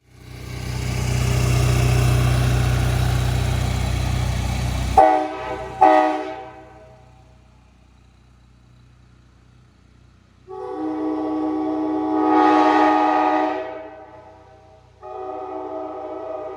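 Nathan Airchime K5LA five-chime train horn sounding a chord: two short blasts about five seconds in, then a long blast that swells louder partway through, and another blast starting near the end. Before the first blast, a steady rushing noise cuts off suddenly as the horn sounds.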